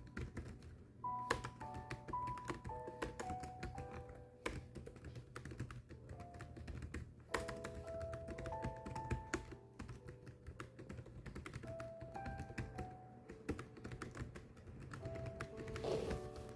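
Continuous rapid typing, a steady stream of irregular key clicks, over soft background music made of short, simple melodic notes.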